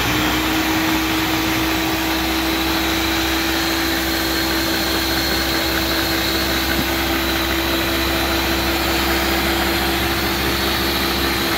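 Ninja countertop blender running steadily, its motor giving a constant loud whine as it purees chopped cauliflower in water into a liquid.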